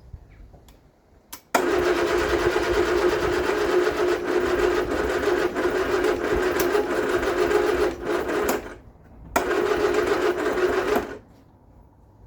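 Vauxhall Viva HC's starter motor cranking the engine with a steady whirr, twice: a long crank of about seven seconds, a brief pause, then a shorter crank of about two seconds. Each stops sharply without the engine catching.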